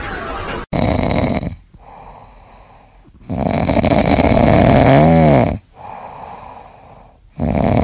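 Domestic cat asleep with its mouth open, snoring loudly: long rough snores a couple of seconds apart, with quieter breaths between them.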